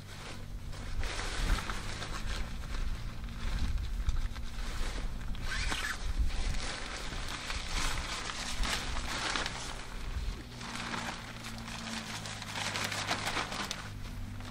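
Rustling and crinkling of a tent's snow fly, the synthetic outer fabric handled and pulled over a dome tent in irregular swells.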